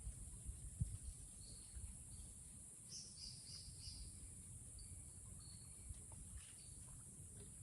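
Rainforest ambience: a steady high-pitched insect drone with scattered short bird calls, including a run of four quick notes about three seconds in. A low rumble sits underneath, with a soft thump about a second in.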